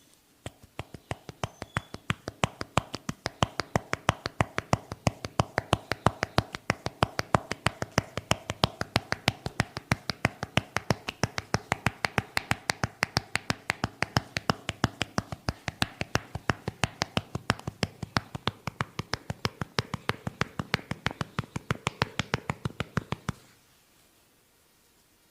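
Massaging hands tapping rapidly on a head, a steady run of sharp claps about five a second that stops suddenly near the end.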